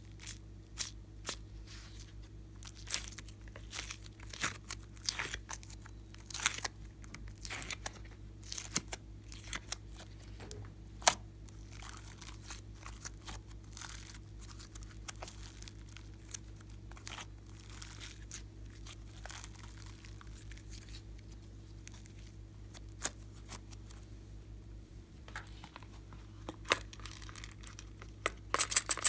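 Glossy slime being pulled out of a plastic tray and stretched by hand: a run of sticky clicks and crackles, busiest in the first twelve seconds or so and sparser after, with a quick cluster of sharper clicks near the end. A faint steady hum sits underneath.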